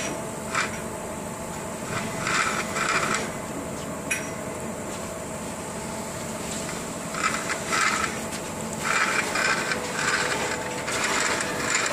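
Hoisting rope rasping through a pulley while a steel conveyor rack is lifted, in short irregular scraping bursts over a steady hum.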